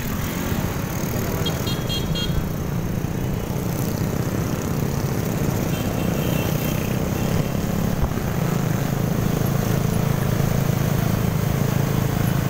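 Motorcycle engine running steadily under way, with rushing wind noise. A few short, high horn beeps sound about two seconds in and again about six seconds in.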